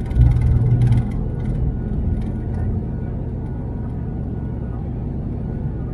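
Cabin noise of an ATR 72 turboprop moving along the runway: a steady low engine and propeller drone with a faint high whine. A louder rattle and rumble comes in the first second.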